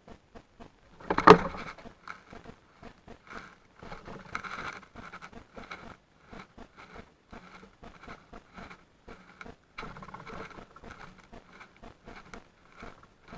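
Birds pecking at seed in a feeder close to the microphone: a run of quick, irregular sharp taps and scrapes, with one loud knock about a second in.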